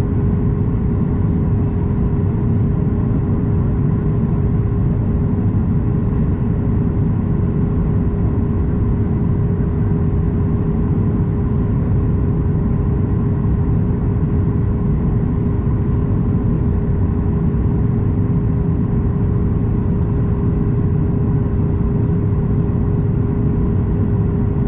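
Steady in-cabin jet noise of a Boeing 737 MAX 8 descending on approach, heard from a window seat beside its CFM LEAP-1B engine: a low rumble with a steady hum tone.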